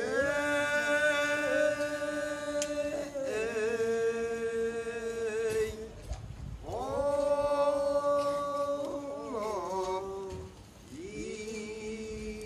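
A man chanting in long drawn-out notes, each sliding up into a held pitch with a slight waver near its end. There are four phrases with short breaths between them.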